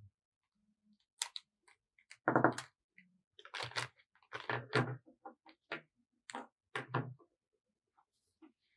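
Tabletop handling sounds: a scatter of clicks and knocks as marker pens are put down and sheets of colored paper are moved on the table, the loudest about two and a half seconds in.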